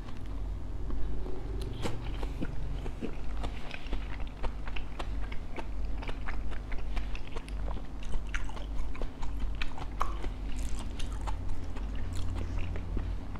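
Close-up chewing and biting of crispy fried bánh khọt, Vietnamese mini rice-flour pancakes with a pork filling, with many small sharp crunches and crackles.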